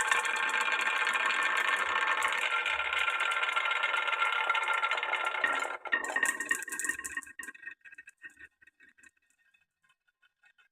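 Many glass marbles rolling and clattering along a wooden marble run: a dense, continuous rattle that breaks off about six seconds in, then thins to scattered clicks that die away over the next two seconds, leaving only faint occasional ticks.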